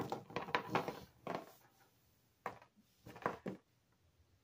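Soft taps and knocks of sugar-coated chewy candy cubes being gathered and stacked by hand on a wooden tabletop: a quick cluster of taps in the first second and a half, then two more taps about a second apart.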